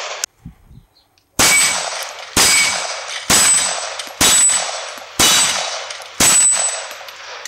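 Six shots from a 9mm 1911 pistol, about one a second, each followed by the ringing clang of a steel plate target being hit.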